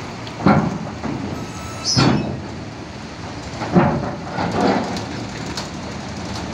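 Box truck driving up a ferry's ridged steel loading ramp, its wheels banging over the steel ramp plates in four loud metallic clanks, with the truck's engine running underneath.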